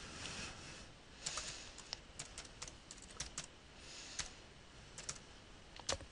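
Typing on a computer keyboard: faint, irregular keystrokes as an email address is entered.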